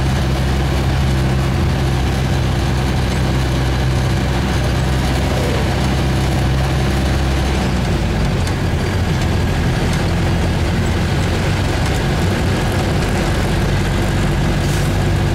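Motor vehicle engine running with road noise. A steady low engine hum gives way to a rougher, less even drone about halfway through.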